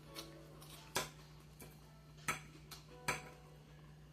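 A fork or utensil clinking lightly against a dish four times while eating salad, over a steady low hum.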